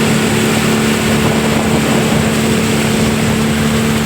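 Motorboat engine running at a steady pitch, a constant hum under an even rushing noise.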